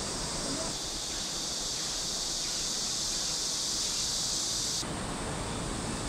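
Outdoor ambience: a steady high hiss that starts about a second in and cuts off abruptly about four seconds later.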